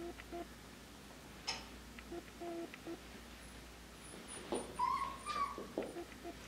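Puppy whimpering in short, soft whines, then a higher, louder whine about five seconds in, with a few sharp clicks in between.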